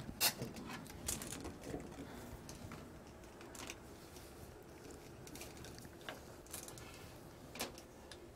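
Faint handling noise from hands working inside a boat's pump compartment: light rubbing and rustling with a handful of scattered sharp clicks.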